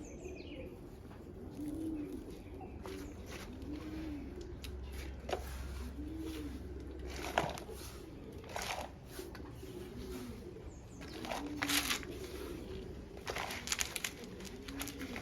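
A dove cooing over and over, a soft rise-and-fall coo about every two seconds, with scattered short rustling and handling noises.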